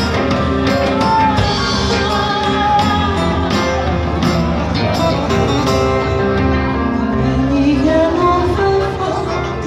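Live band playing, with a woman singing over electric bass, keyboard and plucked strings, and light percussion ticking along.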